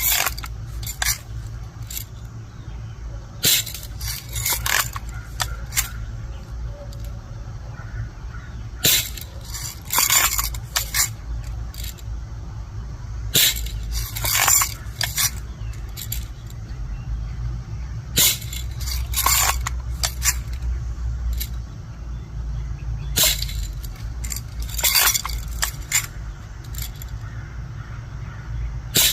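BB gun shooting in bursts about every four to five seconds, each burst a run of sharp clicks and clinks as the gun works and BBs strike a toy tractor-trailer. A steady low rumble sits underneath.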